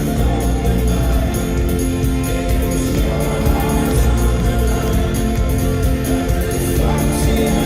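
Live folk-rock band playing in an arena, with many voices singing over sustained instruments.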